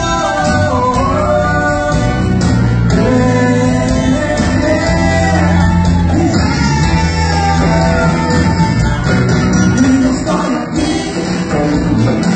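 Live band playing amplified dance music, with a singer over guitar, keyboard and a steady bass line.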